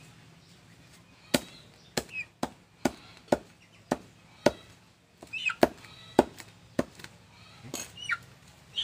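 A heavy knife chopping a plucked bird carcass on a wooden tree stump: a series of sharp, uneven chops about every half second, starting about a second in.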